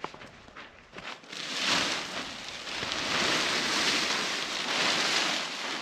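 Large polyethylene plastic sheet crinkling and rustling as it is pulled and unfolded, starting about a second and a half in and going on steadily.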